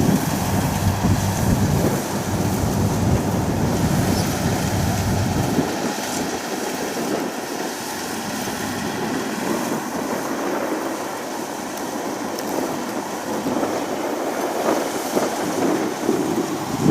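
Kubota DC60 combine harvester running as it cuts rice. A deep diesel engine drone gives way suddenly about six seconds in to a steadier, thinner machine noise without the low rumble.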